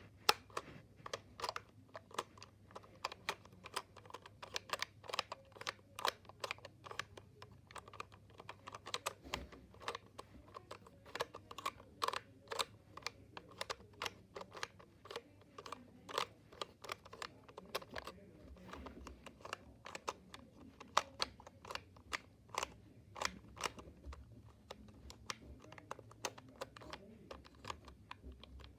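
LEGO plastic pieces clicking and knocking as the tiles of a LEGO sliding puzzle are pushed around by hand, an irregular run of sharp clicks several times a second.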